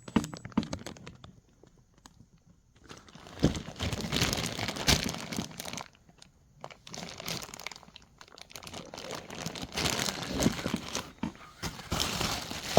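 Packaging crinkling and rustling as the parts of a gas conversion kit are handled, with a few sharp knocks in the first second and a short pause before the longer rustling.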